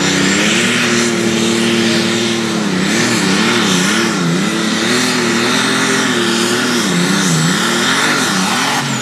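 Turbocharged diesel super stock pulling tractor at full throttle, dragging the weight-transfer sled. The engine note is steady at first, then rises and falls over and over from about three seconds in, with a deeper dip near the end.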